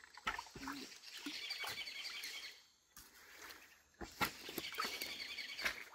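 A bird trilling twice, each trill about a second and a half long, with a few sharp knocks and splashes from sticks and hands in the water hole.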